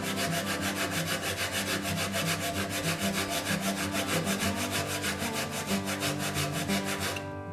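Birch spoon bowl rubbed back and forth on sandpaper fixed to a flat block: a fast, even rhythm of dry scratching strokes, flat-sanding the back of the bowl. It stops sharply near the end.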